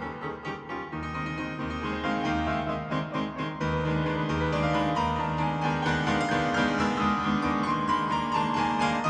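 Background instrumental music led by a keyboard instrument.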